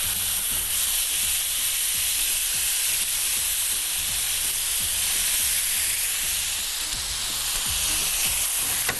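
Chopped garlic, tomatoes and fresh herbs frying in a hot pan, a steady sizzle.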